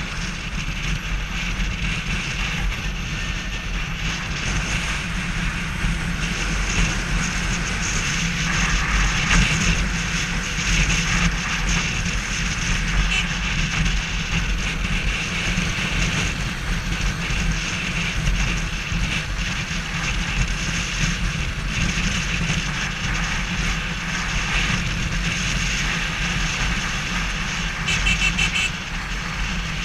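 Steady on-board riding noise from a motorcycle cruising along a road: engine drone mixed with wind rushing over the camera's microphone.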